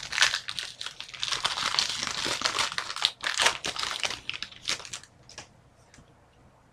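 Plastic wrapper of a pack of hockey trading cards being torn open and crinkled for about five seconds, followed by a few light taps as the cards are handled.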